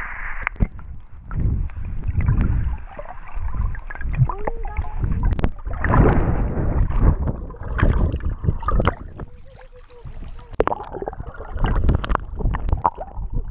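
Water sloshing and gurgling against a camera held in shallow water, dipping below and breaking the surface, with irregular knocks and splashes.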